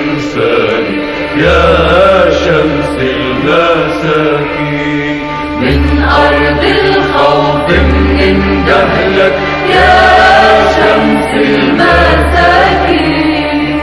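Arabic song music: a slow melodic passage over held bass notes that change about every two seconds, with no words sung.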